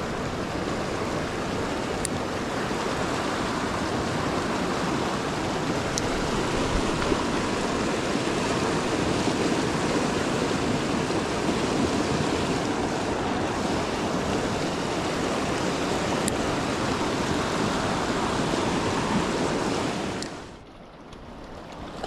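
River current rushing steadily, a full even water noise, with a few faint ticks; it drops away suddenly about twenty seconds in.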